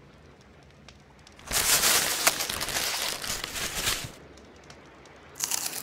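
Plastic chip bag crinkling and crackling for about two and a half seconds, starting a second and a half in, as a small creature crawls out of it; the crinkling starts again near the end.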